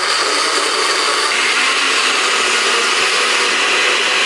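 Electric chopper-blender running at full speed, its blades grinding shallots, garlic, turmeric and coriander with a little water into a wet spice paste. The whirring turns higher and brighter about a second in.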